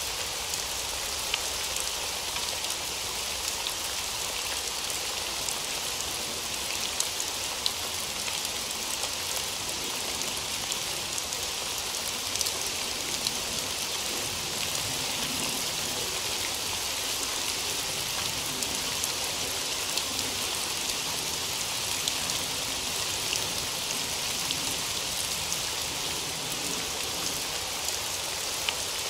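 Steady rain falling, an even hiss with many small drops ticking here and there.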